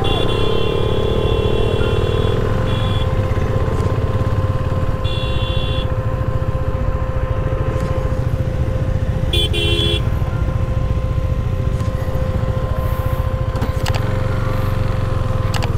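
Motorcycle engine running with a steady low rumble, broken by several short high-pitched horn beeps near the start, about five seconds in and again about nine seconds in.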